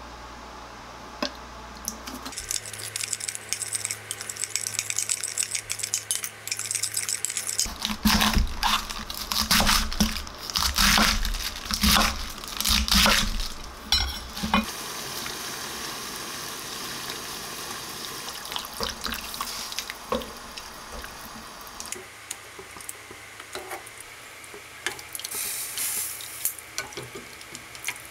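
Running water first, then a kitchen knife chopping cabbage on a wooden cutting board in quick repeated knocks for about six seconds, the loudest part. After that comes the steady bubbling hiss of a pot of water boiling as pork slices are cooked and lifted out.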